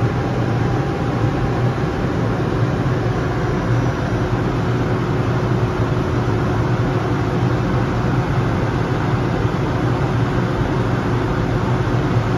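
Steady cabin noise of a Cirrus SF50 Vision Jet in flight: its single Williams FJ33 turbofan and the airflow over the airframe make an even rushing hum with a low drone underneath.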